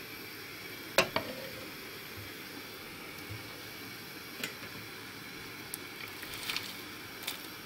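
Chicken broth simmering in a steel pot with a steady soft hiss, and light clicks and splashes as shredded cabbage is slid off a wooden cutting board into it. A sharp knock about a second in is the loudest sound.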